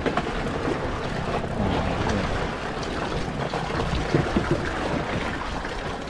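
Steady wind and sea noise aboard a small wooden fishing boat on open water, with a low rumble and a few light knocks of fishing gear being handled.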